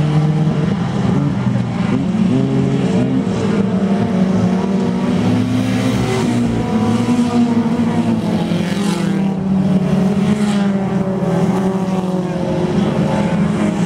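A pack of Dirt Demon class dirt-track race cars running laps, several engines overlapping and rising and falling in pitch as the cars pass, with one car going by close near the end.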